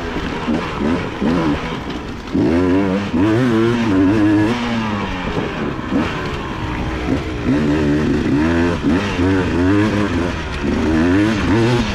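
Two-stroke Beta dirt bike engine being ridden hard on a trail, revving up and down again and again with the throttle. It drops off briefly about two seconds in, then picks up again.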